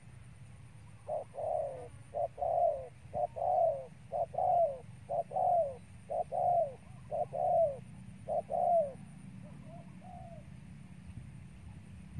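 Spotted dove cooing: a run of about eight coos, roughly one a second, each a short note followed by a longer falling one. A couple of fainter coos follow near the end.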